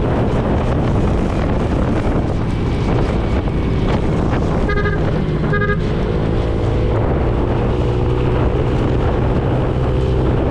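Motorcycle on the move, a steady engine hum under heavy wind noise on the microphone. About halfway through, a horn gives two short beeps, and an engine note starts to drone a little higher just after.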